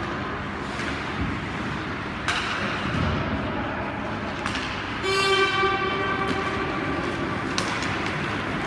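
An ice rink's horn sounds once, a single loud buzzing tone held about a second and then dying away over the rink's background noise. A sharp knock is heard a few seconds before it.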